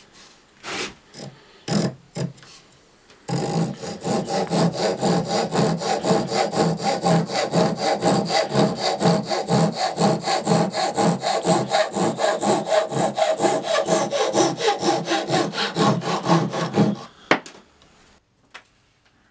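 Japanese pull saw cutting by hand through a small walnut block: a few short starting strokes, then a steady run of fast back-and-forth strokes that stops abruptly near the end.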